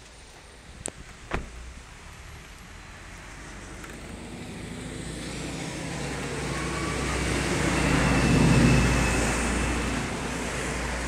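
A car door shutting with two sharp knocks about a second in, then a passing car swelling and fading, its tyres hissing on the wet road.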